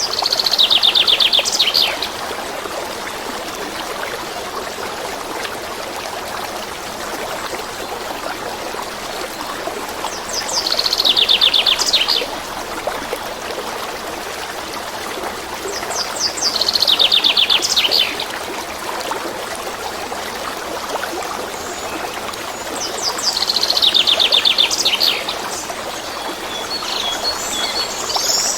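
A stream running steadily, with a songbird singing a short, fast trill of high notes four times, several seconds apart.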